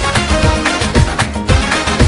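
Upbeat dance music with a steady bass beat.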